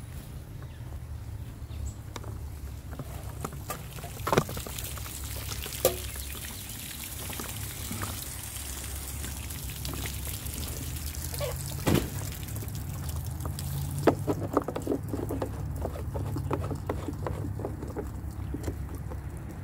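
Water pouring and splashing into a 15-gallon food-grade plastic jug, running steadily. A few sharp clicks and knocks come through, bunched together in the last third.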